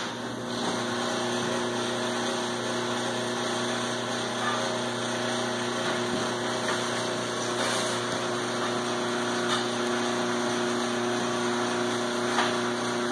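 Steady mechanical hum of running machinery, holding a few constant tones over a low rushing noise, with a few faint clicks and knocks scattered through.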